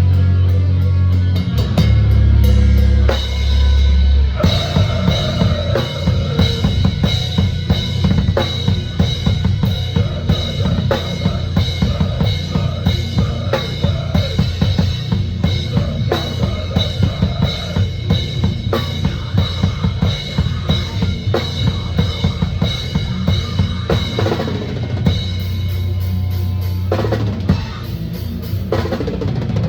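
Drum kit played hard and fast in a deathcore band, with rapid kick and snare strokes. Heavy low held chords sound at the start and again near the end.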